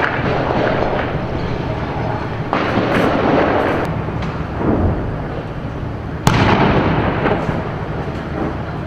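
Battle noise: a continuous din of firing and explosions, with sudden blasts about two and a half and six seconds in. The one near six seconds is the sharpest and loudest.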